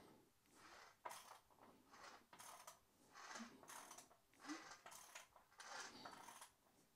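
Faint, irregular mechanical clicks and scrapes as the engine is turned over by hand to check the dyno drive plate on its flywheel for runout.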